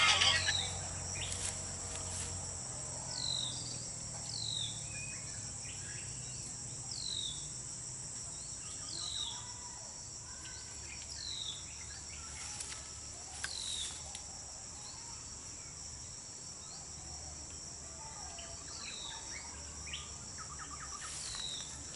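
Steady high-pitched chorus of crickets or similar insects, with a bird's short falling call note repeated about every two seconds.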